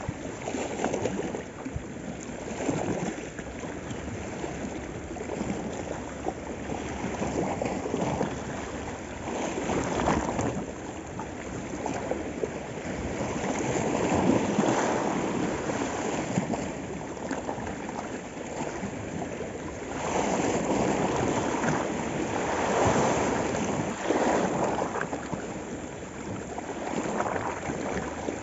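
Small sea waves washing against a rocky shore, a steady rushing that swells and eases every few seconds.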